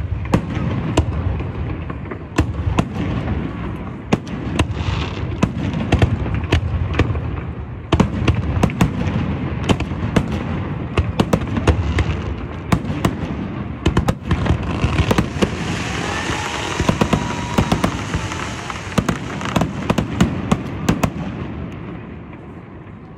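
Fireworks display: aerial shells bursting in rapid, irregular bangs over a continuous low rumble. A thicker spell of crackling comes about two-thirds through, and the bangs die down near the end.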